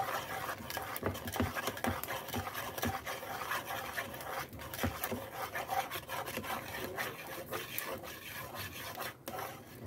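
A spoon scraping and rubbing round a pan while a thick, gum-like milk-and-flour pudding (bulamaç) is stirred, with small irregular knocks of the spoon against the pan.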